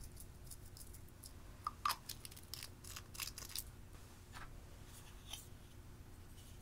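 Light crisp clicks and crackles from handling pressed-powder eyeshadow and its plastic compact over glass dishes. Two sharper clicks come a little under two seconds in, followed by a cluster of crackling ticks and a few scattered clicks.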